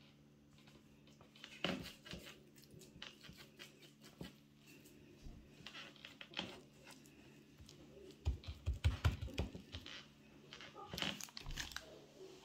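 Faint kitchen handling noises from hands working raw dough strips on a wooden board: scattered light taps and clicks, a run of low thumps about eight seconds in, and crinkling of baking paper.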